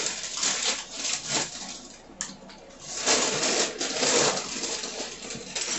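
Plastic bags of Mega Construx pieces rustling and crinkling in bunches as they are handled and rummaged through, with small plastic pieces clicking, one sharp click about two seconds in.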